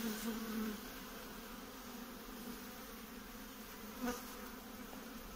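Honeybees buzzing as a steady low hum from an opened hive during a frame inspection, with a light knock about four seconds in.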